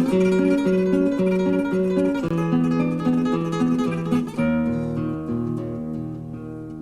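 Flamenco acoustic guitar playing a repeating pattern of alternating plucked notes. About four seconds in it changes to a fuller strummed chord with a low bass note, which rings out and fades.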